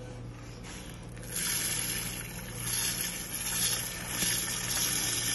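Dry parboiled rice pouring from a plastic bag into broth in an aluminium pressure cooker. It is a hiss of falling grains that starts about a second in and swells and fades as the stream changes.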